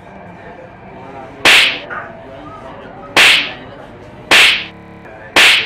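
Four hard slaps to the face, sharp cracks spaced a second or so apart, each much louder than the background.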